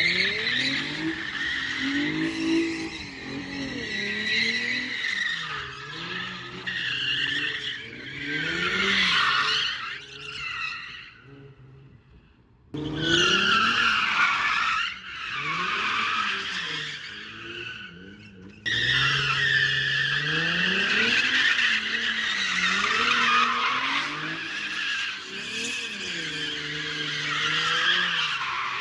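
Infiniti G35 coupe's V6 revving up and down as the car spins donuts, with the rear tires squealing continuously and breaking loose through its open differential. The sound fades out about twelve seconds in, then cuts back in abruptly, and jumps back to full level again about six seconds later.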